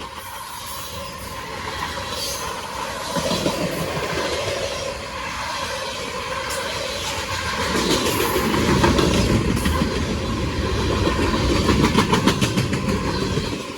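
Freight train cars rolling past, steel wheels clacking over rail joints with a quick run of clicks near the end.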